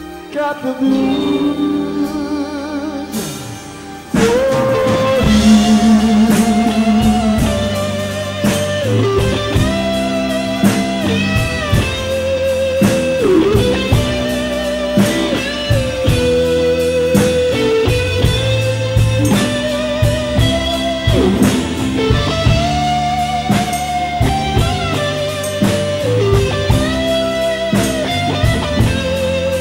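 Live blues band: soft held chords, then about four seconds in the full band comes in loud, with a Stratocaster-style electric guitar playing a lead solo with bent notes over bass and drums.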